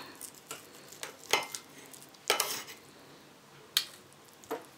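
Knife and fork cutting through a stuffed chicken drumstick on a plate: about five scattered clinks and scrapes of metal cutlery against the plate.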